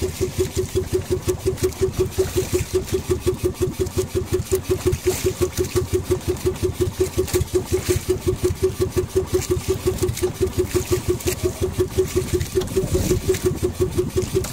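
Small outrigger fishing boat's engine running with a steady, rapid, even thumping beat.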